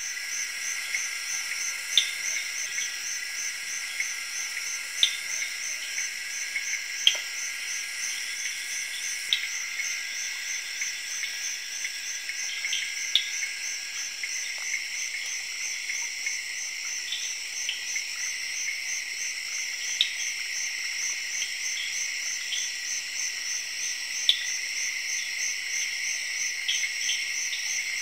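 Night chorus of tropical rainforest insects: several steady, high-pitched trills, one of them a fast pulsing buzz. Short sharp chirps stand out from it every few seconds.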